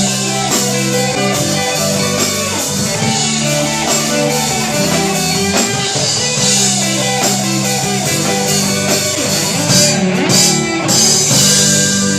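Rock band playing an instrumental passage: guitars over a drum kit, with no singing.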